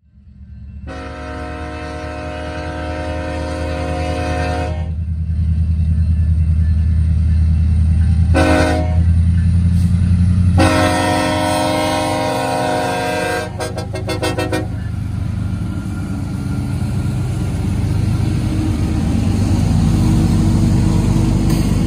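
Union Pacific freight train's lead diesel locomotive sounding its multi-note air horn for a grade crossing: a long blast, a short one, then another long one, over the low rumble of the diesel locomotives. The rumble grows louder as the locomotives pull away upgrade and pass.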